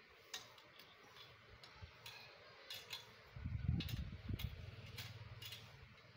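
Irregular light metallic clicks and taps from satellite dish bracket and fittings being handled during assembly, with a brief low rumble a little past halfway.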